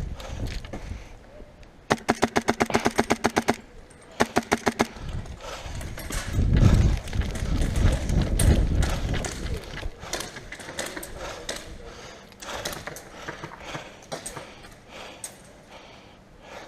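Airsoft rifle firing on full auto: a rapid rattle of shots, a burst of about a second and a half followed by a shorter one. Then low rumbling and scattered knocks from movement and gear.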